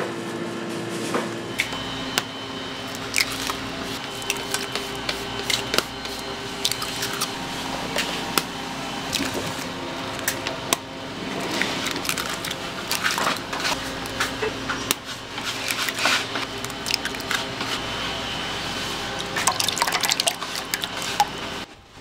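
Wet squishing with irregular sharp clicks and taps, the sound of soft bread dough being handled and worked, over a faint steady hum.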